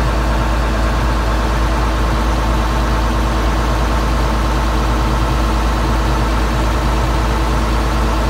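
Ferry boat's engine running steadily with a deep, even rumble.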